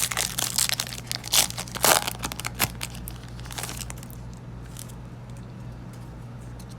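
A Yu-Gi-Oh booster pack's foil wrapper being torn open and crinkled, in a run of crackling bursts over the first three seconds, then softer rustling and handling.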